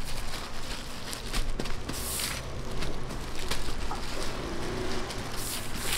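Plastic-gloved hands handling sheets of dried laver on a wooden cutting board: rustling and crinkling with light taps, two brief louder rustles about two seconds in and near the end, over a low background rumble.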